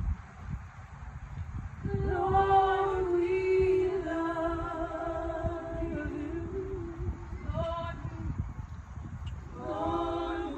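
A woman singing long, held, wordless worship notes with pauses between phrases, over a low rumble in the room.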